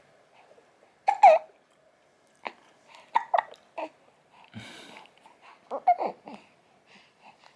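A one-month-old baby hiccupping after a milk feed: about six short, sudden hiccups at uneven intervals, some with a small squeak of voice, and a breathy sound near the middle.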